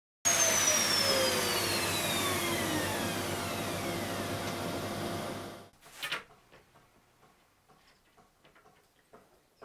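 Router on a router table running with its dust extractor, starting abruptly; a whine falls steadily in pitch over the first few seconds as the router spins down, and the noise cuts off about five and a half seconds in. After that, only faint handling knocks and rustles.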